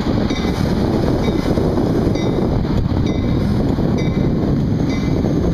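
Metra stainless-steel bi-level gallery passenger coaches rolling past close by: a loud, steady rumble of steel wheels on the rails.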